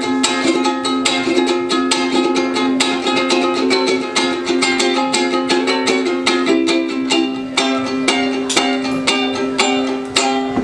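Ukulele played in an instrumental passage, quick plucked and strummed notes over a steady held low note, stopping just before the end as the song finishes.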